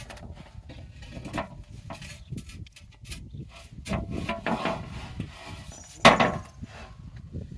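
Irregular knocks, clunks and scraping from handling a large circular sawmill blade while it is fitted onto the saw, with one loud clunk about six seconds in.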